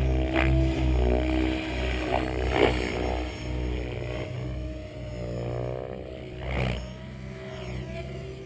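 Mikado Logo 800-class electric RC helicopter flying aerobatics: a steady rotor hum and motor whine with sharp blade swishes during the quick manoeuvres in the first few seconds. Around two-thirds of the way through the pitch slides down and the sound grows fainter as the helicopter moves away.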